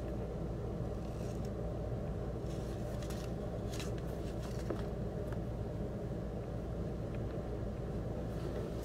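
A steady low background hum, with a few faint rustles and clicks as a sneaker and its paper stuffing are handled.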